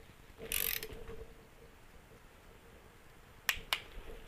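A brief scrape near the start, then two sharp clicks in quick succession about three and a half seconds in. The clicks are typical of a click-type torque wrench reaching its set torque on a motorcycle crankcase bolt. A faint steady hum runs underneath.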